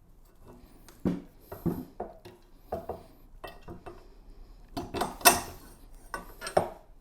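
Metal cart parts knocking and clinking as they are handled and fitted: the rods, spacers and frame of a Lava Cart production cart kit being worked on a folding cart. A string of separate knocks, the loudest cluster about five seconds in.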